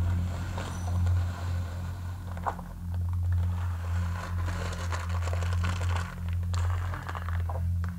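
Coarse salt being mixed with brown vinegar in a glass bowl: gritty scraping and crackling with a few sharper clicks, over a steady low hum.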